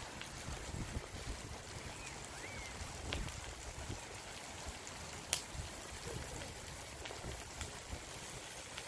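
Outdoor ambience: wind buffeting the microphone in irregular low rumbles over a steady hiss. A faint bird chirp comes about two seconds in, and a sharp click about five seconds in.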